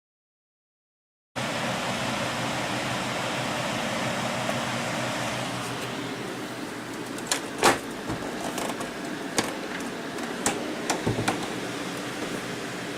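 Desktop gaming PC's cooling fans running with a steady whoosh, coming in after about a second of silence. From about seven seconds in, several sharp clicks or knocks sound over it.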